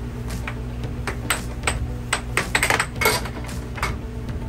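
Air hockey puck and mallets clacking in a fast rally: a dozen or so sharp hard-plastic hits at an uneven pace, bunching into a quick flurry about two and a half to three seconds in, over a steady low hum.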